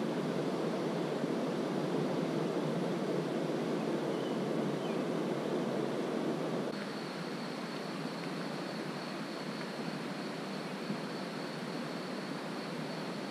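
River water rushing steadily over shallow rocky riffles. About seven seconds in the rush drops a little quieter and a faint steady high-pitched tone joins it.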